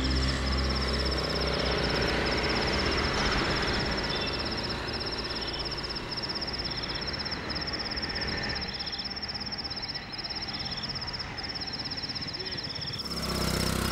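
Night-time outdoor ambience: a high, evenly pulsing cricket trill over a steady broad hiss of background noise.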